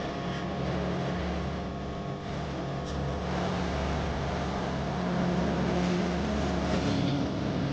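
A steady mechanical hum, like a small motor running, with a slight rise in level about five seconds in.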